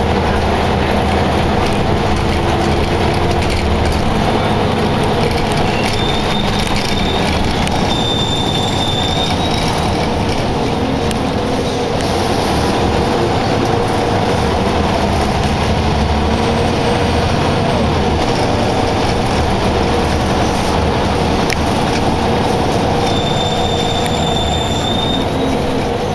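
Scania L94UB Wright Solar bus heard from inside the saloon: its diesel engine and drivetrain running with a steady loud rumble as the bus drives. A thin high-pitched squeal sounds briefly twice, once about six to nine seconds in and again near the end.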